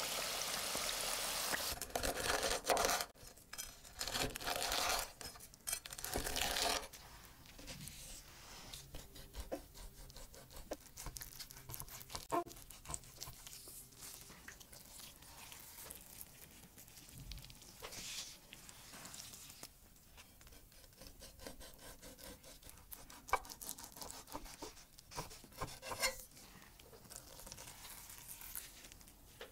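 Breaded chicken cutlets deep-frying in hot oil, a loud dense sizzle for the first seven seconds or so. Then quieter wet handling sounds and small clicks as raw chicken breast is handled and opened out on a wooden board.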